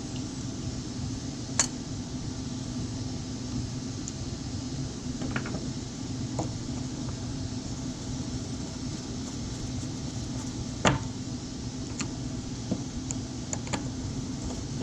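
A steady low machine hum with a few sharp clicks and light knocks over it, the loudest about a second and a half in and again near eleven seconds.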